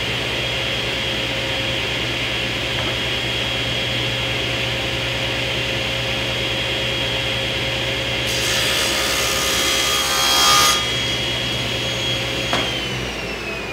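Cabinet table saw running at speed. A little past the middle it rips through a half-inch plywood panel for about two seconds, a loud, bright cutting noise over the motor's whine. Near the end the saw is switched off and the whine falls as the blade spins down.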